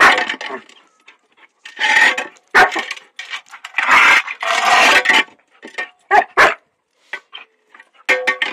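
A puppy barking and growling in irregular bursts, worked up by a shovel it hates.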